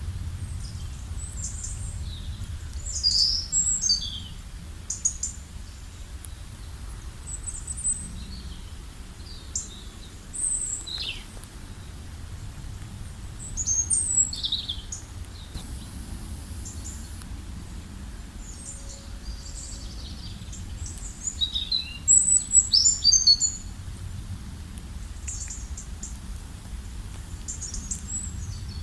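Several songbirds chirping and trilling in short, scattered high calls, busiest about a third of the way in and again near three-quarters through, over a steady low rumble of wind or water.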